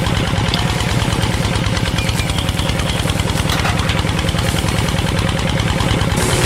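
A small motor-driven machine running steadily with a fast, even rattle.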